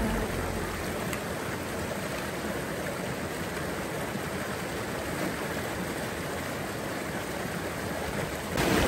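Water rushing steadily through a narrow rock channel at the top of Gibraltar Falls, pouring down over granite boulders. It gets a little louder near the end.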